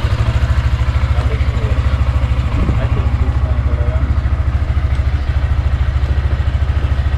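Yamaha Sniper 155's single-cylinder four-stroke engine idling steadily with a fast, even pulse.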